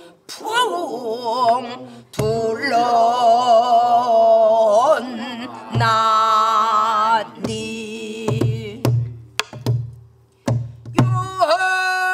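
A woman singing pansori, holding long notes with a wide, wavering vibrato, accompanied by stick strokes on a buk barrel drum that come more often in the second half.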